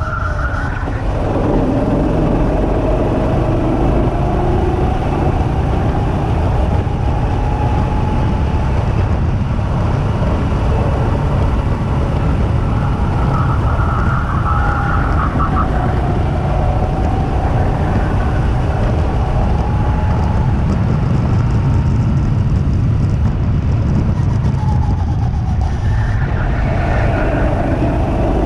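Two-seater go-kart's engine running at speed, its note rising and falling as the throttle comes on and off through the corners, over a steady low rush of wind and track noise.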